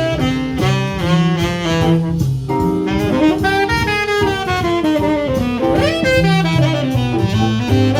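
Small jazz group playing: a saxophone solos in quick runs of notes over a stepping bass line and drums.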